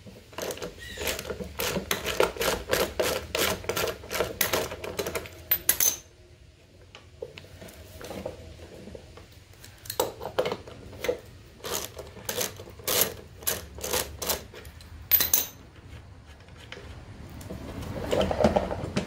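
Ratchet wrench clicking in quick strokes, about four clicks a second, as it backs off the bolt holding a lawnmower's front drive wheel; after a pause, slower single clicks follow. A short scraping sound comes near the end.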